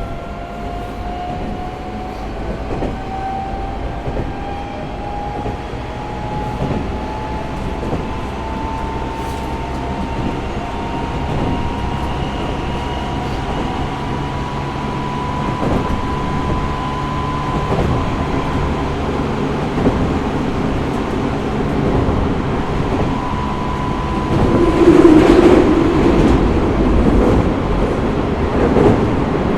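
Tokyo Metro 05 series train running, heard from inside the car. The Mitsubishi IGBT-VVVF traction inverter and motors whine, the whine rising in pitch as the train gathers speed, then levelling off and fading out a little after twenty seconds. Under the whine are steady wheel-on-rail rumble and light rail-joint clicks, and the rumble grows louder near the end.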